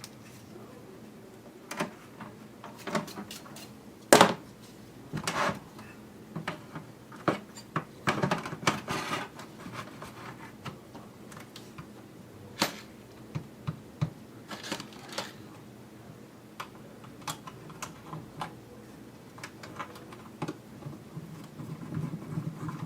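Irregular clicks and knocks of a PlayStation 4 console's plastic casing and parts being handled and fitted together during reassembly, the loudest knock about four seconds in.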